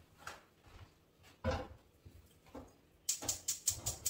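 Kitchen handling sounds from cookware and utensils: scattered light knocks and clicks, one firmer knock about one and a half seconds in, and a quick run of sharp clicks near the end.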